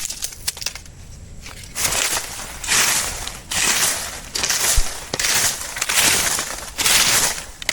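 Repeated crunching, rustling noise in bursts about once a second, starting about two seconds in, with a short low thump near the middle.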